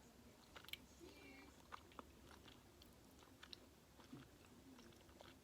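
Faint chewing of a gummy fruit snack: scattered soft, sticky mouth clicks and smacks.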